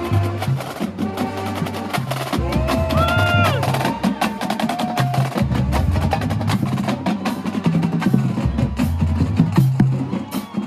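Marching band drumline playing a cadence: rapid snare and tenor drum strikes over steady bass drum beats.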